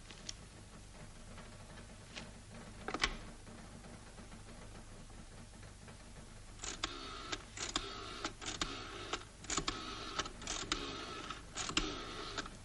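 Rotary telephone being dialled: a quick run of clicks and whirring as the dial is turned and springs back for each digit, starting about halfway through. A single short knock comes about three seconds in.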